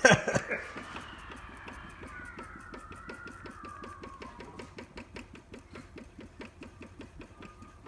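Fuel pump ticking in a fast, even rhythm, about five clicks a second, as it primes the empty carburetor float bowl of an Onan W2C generator engine before its first start after a rebuild.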